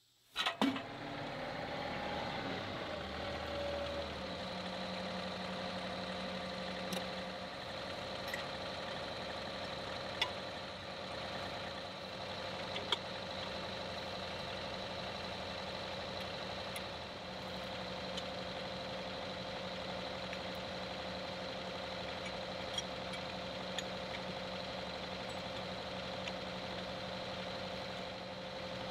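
John Deere 2038R compact tractor's three-cylinder diesel engine running steadily at idle, with a few light clicks along the way.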